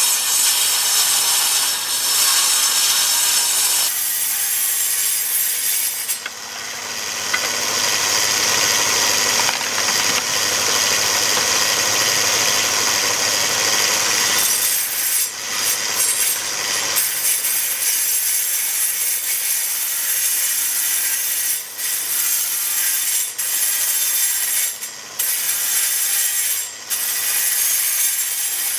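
Table saw ripping rough white oak boards: a loud, continuous cutting sound from the blade in the wood, with a few brief dips in the second half.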